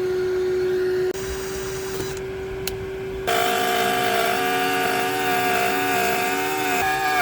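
Shop vacuum running steadily. About three seconds in, a router with a quarter-inch spiral bit comes in louder, its whine wavering as it cuts into half-inch MDF.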